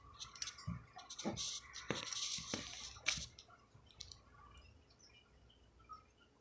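Soft clicks and taps from a hand working close to the microphone, about five of them over the first three seconds with some light rustling, then only faint small noises.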